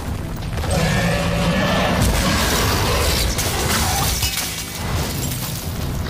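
Cinematic sound effects of rock shattering and debris crashing, over dramatic trailer music.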